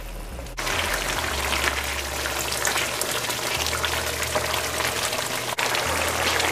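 Saijan bhaji (drumstick leaves) cooking down in coconut milk in a frying pan, bubbling and crackling densely as the liquid boils off. The sound comes in about half a second in.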